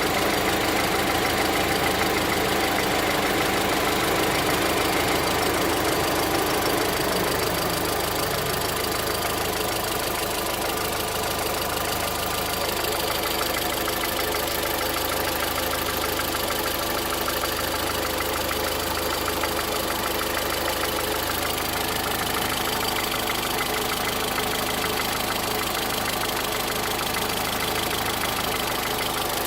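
Volkswagen Voyage's EA111 four-cylinder engine running at idle, a little louder for the first seven or eight seconds and then steady. The freshly replaced engine makes a noise the owner calls strange.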